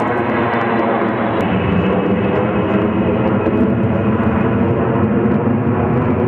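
Four-engine jet aircraft passing low overhead: a loud, steady jet noise with several humming tones running through it.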